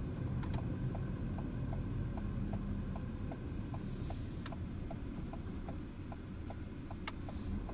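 A Ford car's turn-signal indicator ticking evenly, about three ticks a second, signalling a left turn, over the low steady hum of the engine and tyres inside the cabin.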